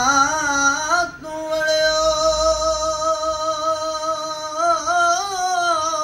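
A man singing a kalam unaccompanied: a short ornamented phrase, then one long held note with a slight waver that lifts into a turn near the end and falls away. The frame drum in his hands is not struck.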